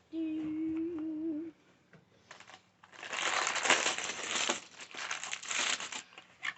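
Plastic packaging crinkling and rustling as the contents of a Boba Fett Star Wars building set are taken out of the opened box, loudest in the middle. It is preceded by a short hummed note held for about a second and a half.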